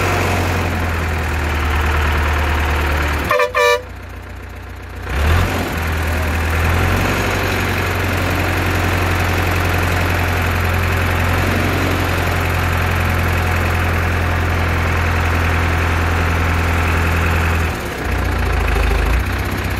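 Heavy engine of the crane holding the idol, running steadily with a low hum. Two short horn toots sound about three seconds in.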